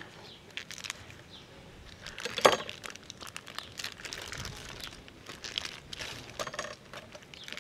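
Plastic vacuum-pack wrapping on a whole raw beef tenderloin being slit with a knife and pulled off the meat: crinkling and tearing plastic, with one louder sharp sound about two and a half seconds in.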